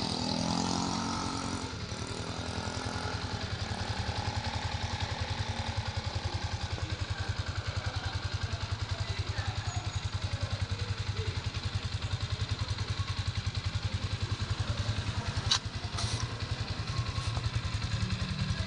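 Single-cylinder underbone motorcycle engine idling steadily, an even low putter, with a sharp click about fifteen seconds in.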